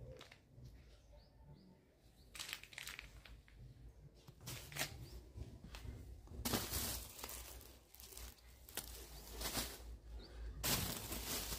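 Irregular rustling and handling noises, sparse at first and louder and more frequent from about halfway through, over a faint low hum.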